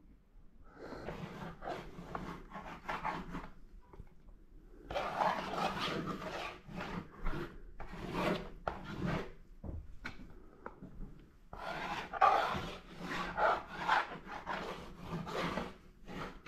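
Paintbrush scrubbing paint onto paper in quick scratchy back-and-forth strokes, in three spells with short pauses between them.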